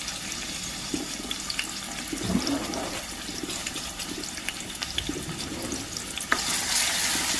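Chopped onions frying with cumin in a little hot oil in a pan, a steady sizzle with small crackles. The sizzle gets louder about six seconds in.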